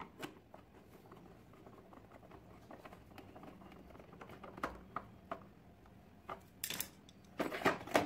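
Hand screwdriver turning screws into the plastic housing of a canister vacuum cleaner: scattered small clicks and scrapes. Near the end comes a quick run of louder plastic clacks as the top cover is handled onto the base.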